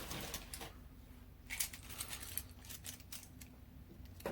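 Light clicks and taps of plastic mechanical pencils being handled and set down, in scattered short clusters.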